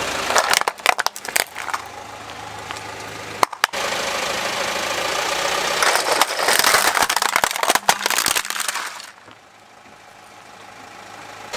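Plastic toy vehicles cracking and crunching under a car tyre: a burst of sharp cracks about half a second in, two snaps just after three seconds, then a longer run of crunching from about six to nine seconds. The car's engine runs at idle underneath.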